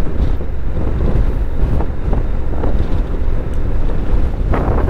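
Motorcycle riding along a road: a steady low engine and road rumble mixed with wind buffeting the helmet-mounted microphone.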